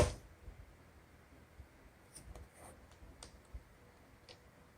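Buttons of a digital alarm clock-timer being pressed and handled: a sharp click right at the start, then a few faint scattered clicks.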